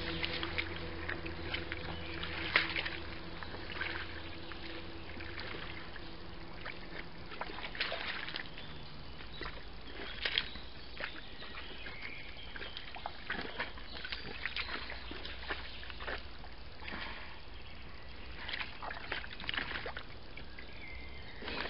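Wild boar rooting and wallowing in a muddy pool: irregular wet sloshing, splashing and squelching of mud and water.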